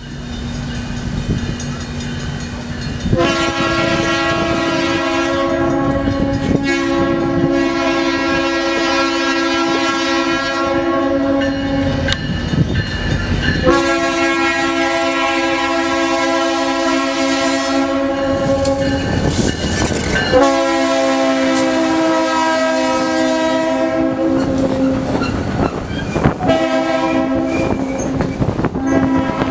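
Diesel locomotive air horn sounding a chord in repeated long blasts, four of them, each several seconds long, over the rumble and clatter of the passing train's wheels on the rails.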